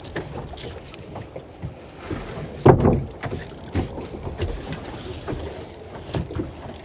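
Gillnet being hauled aboard a small fishing boat at sea: irregular knocks and splashes, with wind on the microphone. One louder thump comes about two and a half seconds in.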